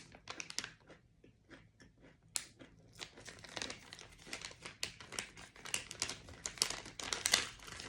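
Plastic snack packaging crinkling as it is handled, in irregular crackles that thin out briefly about a second in and pick up again about three seconds in.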